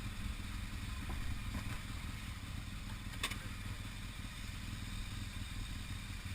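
BMW R1200GS Adventure's boxer-twin engine running low and steady, with one sharp click about three seconds in.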